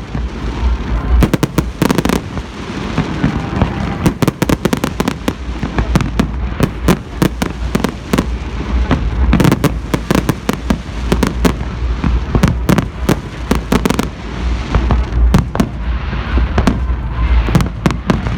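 Fireworks going off continuously: a dense, irregular run of sharp bangs and crackles over a steady low rumble of booms.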